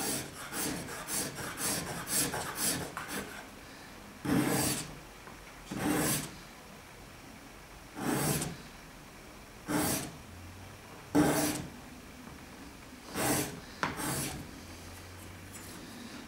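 Hand sanding on the sapele mahogany body of a homemade Japanese kanna plane, with sandpaper held in the fingers. Quick short scraping strokes for the first few seconds, then single slower strokes about every two seconds.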